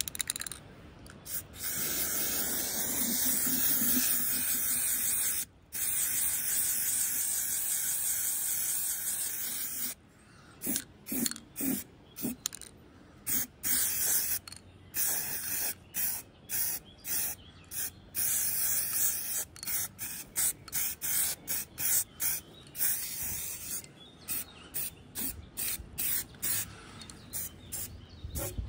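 Aerosol spray can of antifouling paint hissing as it sprays a coat onto a boat's saildrive leg. It gives two long sprays of several seconds each, broken by a brief pause about five seconds in, then a long run of short bursts.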